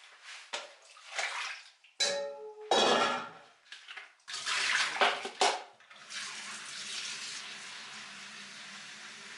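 Kitchen tap water splashing in two loud spells, with a metal pot or dish clinking once, then a steady hiss with a faint low hum.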